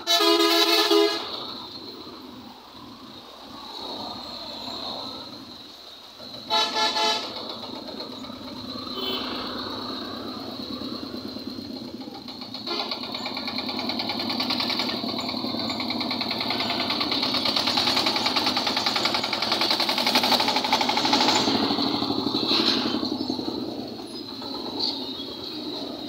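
Vehicle horns of buses and trucks: a horn blast lasting about a second at the start and another short double blast about six and a half seconds in. After that, road traffic passing close by, engines and tyres building to its loudest about twenty seconds in and easing off near the end.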